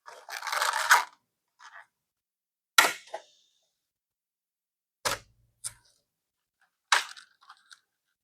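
Unboxing handling sounds: about a second of packaging rustling, then three sharp clicks or taps roughly two seconds apart, each followed by a fainter tap.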